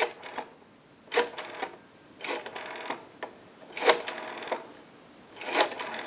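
Rotary dial of a Western Electric 500-series wall telephone being pulled round and let go about four times, each spring return spinning back with a quick run of clicks, each run a little longer than the last as the digits climb. The dial returns smoothly, the sign that its repair has worked.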